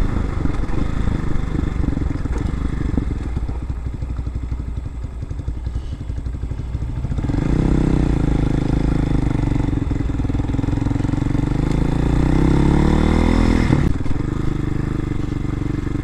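Hawk-X 250 air-cooled single-cylinder motorcycle engine, a new engine still being broken in, running at low revs while riding, then revving up steadily as it accelerates for several seconds before dropping sharply in pitch at an upshift, and running on steadily.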